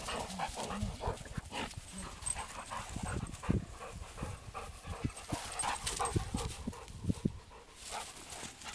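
A vizsla panting, tired from running.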